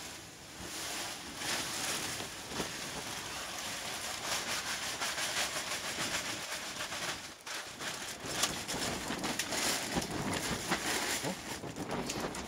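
A plastic bag of potting soil being emptied into a planting pit: the bag rustles and crackles as the soil pours out, easing off briefly about seven and a half seconds in.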